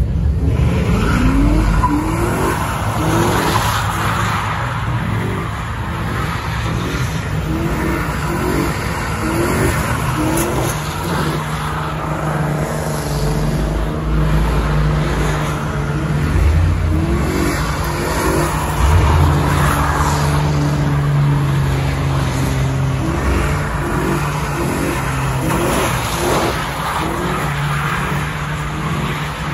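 Pickup truck doing donuts: its engine held at high revs while the tyres spin and squeal on the asphalt, throwing up thick tyre smoke.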